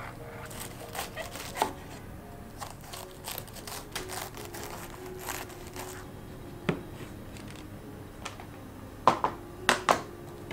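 Chef's knife shredding cabbage on a wooden chopping board: quick crisp crunching cuts with light knocks of the blade on the wood. Near the end, a plastic salad spinner knocks down onto the board, three louder knocks in quick succession.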